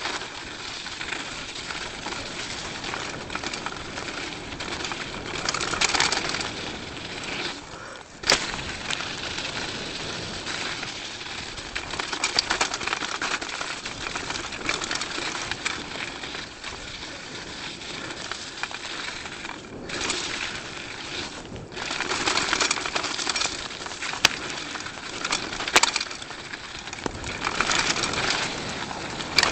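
Felt Redemption mountain bike ridden down a snowy trail, heard from a helmet camera: a steady rush of tyre and wind noise that swells and dips. There are a few sharp knocks, one about eight seconds in and two more near the end.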